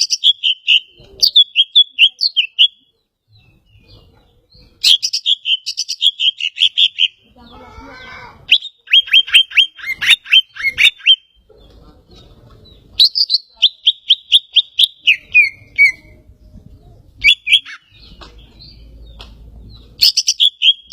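Greater green leafbird (cucak ijo) singing loudly in repeated phrases of rapid high chirps, each phrase a couple of seconds long, with short pauses between them; one phrase ends in a falling run of notes.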